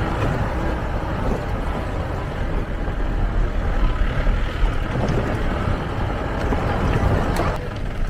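Jeep driving over a rough forest track, its engine and road noise running steadily, with a sharp knock near the end.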